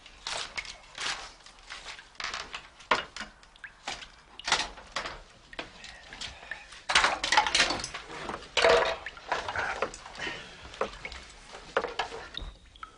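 Irregular knocks, clatters and rustling, with a couple of louder noisy bursts about seven and nine seconds in.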